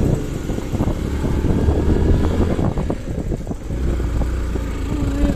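Motorcycle engine running at low speed over loose rocks and gravel, with many short knocks and rattles from the tyres and bike. A bit over halfway through the engine's low note grows stronger and steadier as the bike rides on.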